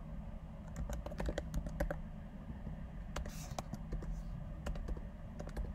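Typing on a computer keyboard: irregular clusters of key clicks, with a steady low hum underneath.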